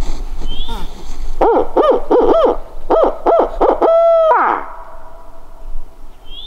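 Barred-owl hoot sent out as a turkey hunter's locator call: a rhythmic series of about seven short rising-and-falling hoots ending in one longer drawn-out hoot that slides down, meant to make a roosted gobbler answer.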